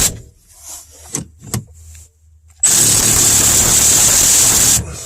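Cordless power wrench running under load in two bursts while tightening bolts, a steady high-pitched whine each time; the second burst lasts about two seconds. A few light clicks fall in the pause between.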